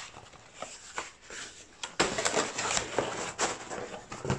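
Cardboard pizza boxes being handled and shut on a table: scraping and rustling with a few sharp knocks, the loudest stretch starting suddenly about two seconds in.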